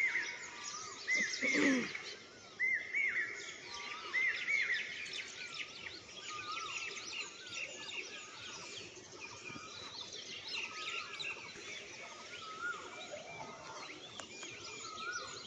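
Several birds chirping and singing together, many short whistled notes overlapping, with one arched note repeated several times near the start. A brief lower sound stands out about a second and a half in.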